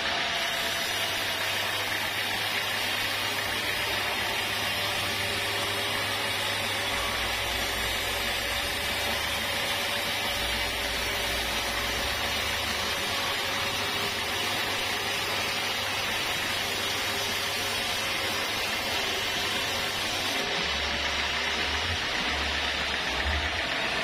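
Sawmill band saw cutting lengthwise through a teak log, a steady even hiss of the blade in the wood with a faint whine from the machine.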